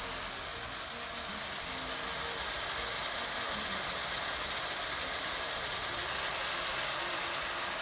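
Chicken chukka sizzling steadily in its pot as the liquid the chicken and tomatoes have released cooks off over a low flame.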